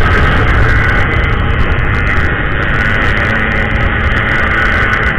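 Yamaha RX-King two-stroke motorcycle engine running steadily at road speed, heard from the rider's handlebar with heavy wind rumble on the microphone.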